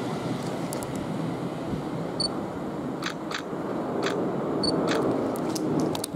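Class 730 Aventra electric multiple unit pulling out of the station, a steady rolling rumble that swells a little near the end. Several sharp clicks and two brief high pips sound over it.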